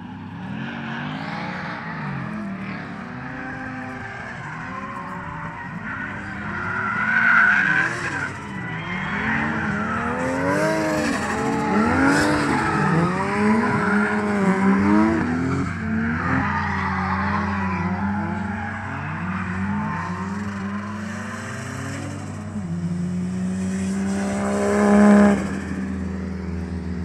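Drift cars' engines revving up and down over and over as they slide around the track, with tire squeal. The loudest moments come about seven seconds in and just before the end, when a car passes close on a steady high-revving note.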